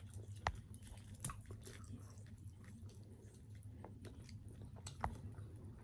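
Quiet chewing of pizza and french fries, with many small mouth clicks. Two sharper clicks or knocks come, one about half a second in and one about five seconds in.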